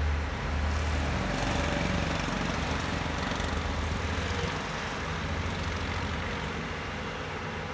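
Excavator's diesel engine running steadily with a low hum, easing slightly about four and a half seconds in.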